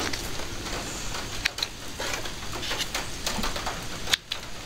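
Fabric and thread being handled at a sewing machine, with small sharp clicks as the thread tails are snipped with small scissors.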